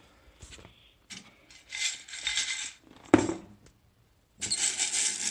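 Loose plastic keycaps clattering and rattling as they are handled, with one sharp knock about three seconds in, then a continuous clatter from near the end.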